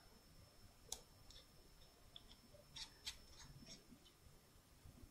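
Near silence with a handful of faint, sharp clicks and ticks as a vape coil is screwed by hand into the tank of a Joyetech Exceed Edge pod vape. A faint, steady high tone runs underneath.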